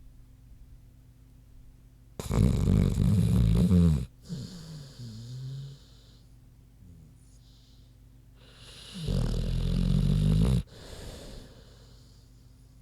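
American bulldog snoring in its sleep. There are two loud snores, about two seconds each and some six seconds apart. Each is followed by a softer, wheezy breath with a wavering whistle.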